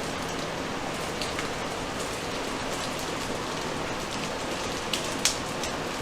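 A steady hiss like rain or a fan, with a few light clicks of metal garage door opener parts being handled, the sharpest about five seconds in.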